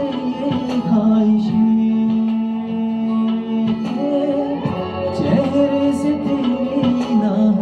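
A man singing a Bollywood song into a handheld microphone, holding long notes over an instrumental backing track.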